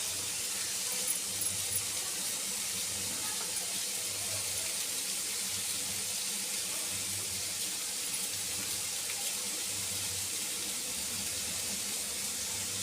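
Masala of chopped tomato, onion and garlic frying in oil in a kadai, with a steady, even sizzle.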